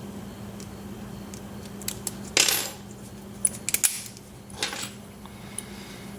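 Small metallic clicks and clinks, with a couple of brief scraping sounds, as the just-opened Abus padlock and the lock picks are handled. A steady low hum runs underneath.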